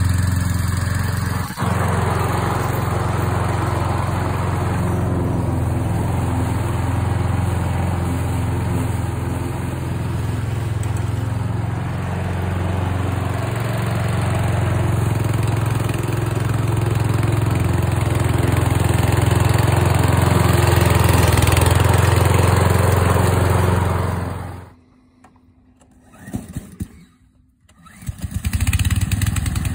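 Stihl RM 650 V petrol lawnmower's Kohler engine running steadily while the mower cuts grass. Near the end the sound drops out suddenly for about three seconds, then the engine is heard again.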